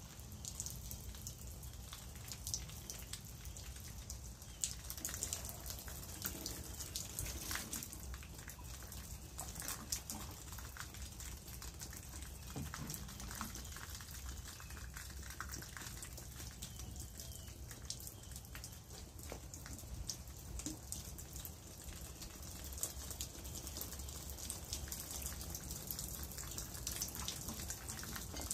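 Water poured from a watering can, pattering steadily onto bougainvillea leaves and the potting soil of a freshly repotted bonsai, over a steady low rumble.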